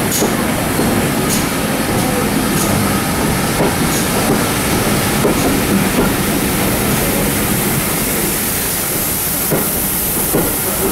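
Steam-hauled train running along the line: a steady rumble and hiss, with regular clicks of the wheels over rail joints about once a second.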